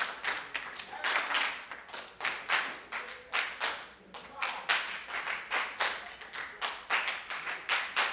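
Body percussion: a group of performers clapping out a fast, syncopated rhythm, about three or four sharp hits a second.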